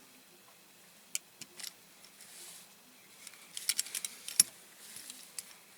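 Light metallic clicks and rattles of a diecast toy truck and small hand tools being handled: two clicks about a second in, then a quick flurry of clicks around the middle, with a sharper knock at the end of it.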